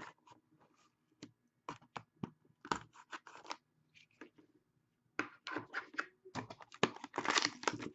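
Irregular scratching, scraping and tearing of a sealed hockey card box and its wrapping being opened by hand. The noises come as short separate strokes at first, then crowd together over the last three seconds.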